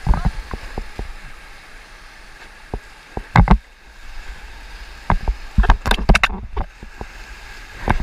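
Whitewater rapids rushing around an inflatable raft, with paddle strokes and waves slapping the boat and splashing over the camera in irregular knocks. The loudest hits come about three and a half seconds in and in a quick cluster around six seconds.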